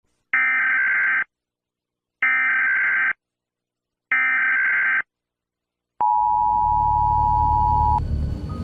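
Emergency Alert System broadcast tones: three short bursts of the screeching digital data header, about a second each with a second of silence between, then from about six seconds in the steady two-tone attention signal.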